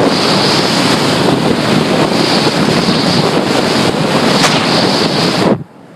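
Wind rushing over the microphone at a moving car's open window: a loud, steady rush that cuts off suddenly about five and a half seconds in.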